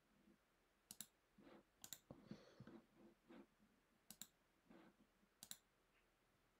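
Faint computer mouse clicks: four short press-and-release clicks spaced a second or two apart, over near silence.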